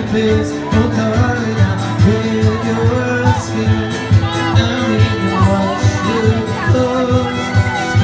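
Acoustic guitar and fiddle played live together, the fiddle's held and sliding notes over a steady strummed guitar rhythm.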